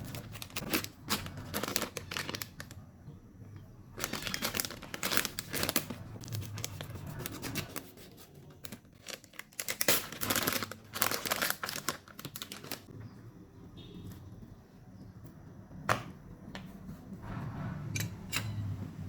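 Packaging being crinkled and torn, in three bursts of rustling and crackling, with a few sharp clicks near the end.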